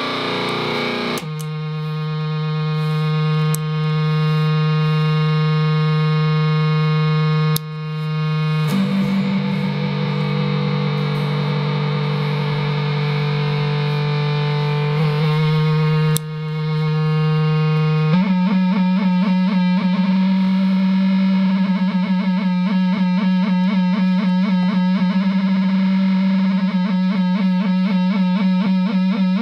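Guitar effects pedals (Dwarfcraft pedals into a Delta Labs digital delay) putting out a loud, sustained, distorted drone. The pitch steps a few times, the level swelling up after each change, and from about two-thirds in a fast fluttering warble rides on the tone.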